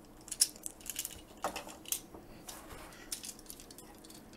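Hard plastic parts of a Transformers figure and its add-on armor clicking and rattling in the hands as a leg piece is worked into place, a handful of light, scattered clicks.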